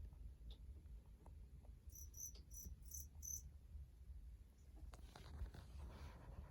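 A cricket chirping five times in quick succession, high-pitched, about two to three seconds in, over faint clicks; soft rustling and scraping near the end.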